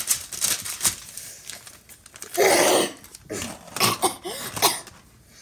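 A crinkly white sheet crumpled and rustled in the hands, crackling for about the first second and a half. Then comes a loud wordless vocal burst, followed by short voice noises, from the boy.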